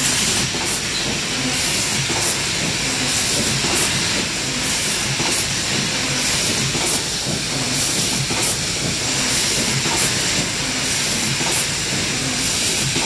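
Automatic corner-spout pouch sealing machine running: a steady mechanical clatter of its feed conveyor and rollers, with short hisses repeating about once a second from its air-driven cylinders cycling.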